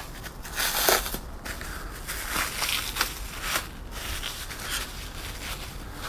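Plastic wrapping crinkling and crackling in irregular bursts as it is peeled by hand off a propane furnace burner, loudest about a second in.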